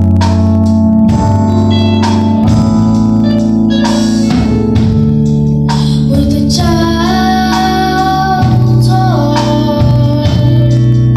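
Live band playing: a keyboard holds organ-style chords over a steady bass, with occasional drum hits. Singers' voices carry a melody line from about six to nine seconds in.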